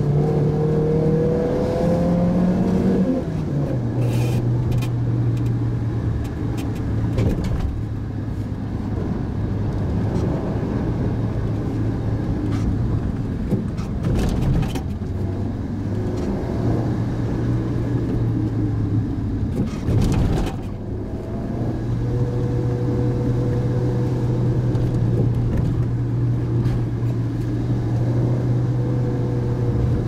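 Mitsubishi Pajero Mini's engine heard from inside the cabin, pulling uphill on a winding road. The engine rises in pitch for the first three seconds, then drops sharply, typical of an upshift, and runs on steadily, with a couple of brief knocks from the road along the way.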